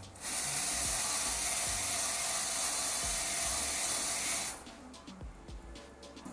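Wire brush spun by a cordless power tool scrubbing slag off a flux-core weld on steel tubing: a steady scrubbing noise that starts just after the opening and cuts off about four and a half seconds in.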